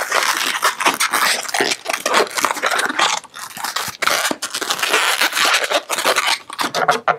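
A small inflated latex modelling balloon (a white 260) being rubbed and twisted in the fingers as it is tied into a loop: scratchy rubbing of latex with many small clicks and crackles.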